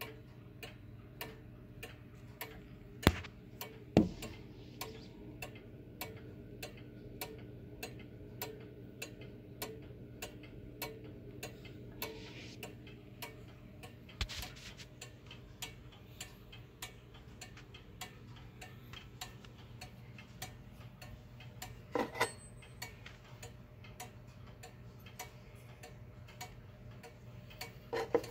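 1930s F.M.S. Mauthe wall clock movement, cleaned and oiled after years unused, ticking steadily and evenly, with a few louder knocks about three and four seconds in and again past the middle. Near the end a metal winding key clinks as it is picked up.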